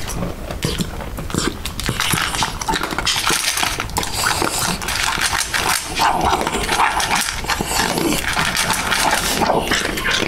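A small dog eating dry kibble from a stainless steel bowl: continuous noisy chewing mixed with the dog's own vocal noises while it eats, the 'chewgle'.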